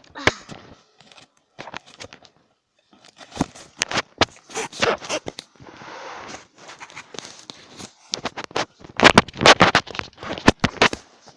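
Close, irregular clicks, knocks and scraping from something being handled near the microphone, with a brief rushing noise about six seconds in.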